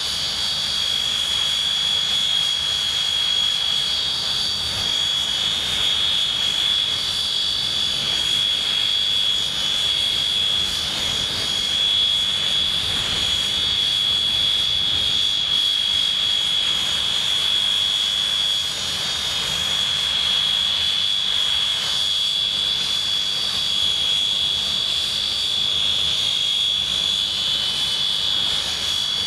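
English Electric Canberra's Rolls-Royce Avon turbojets idling on the ground: a steady, high-pitched compressor whine over a low rumble.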